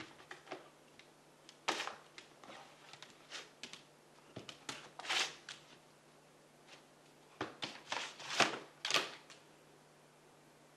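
A dog pawing and nosing at a round plastic cat toy, making irregular scratches and clicks of claws on plastic and fabric, with a cluster of louder scrapes about eight seconds in. A faint steady low hum runs underneath.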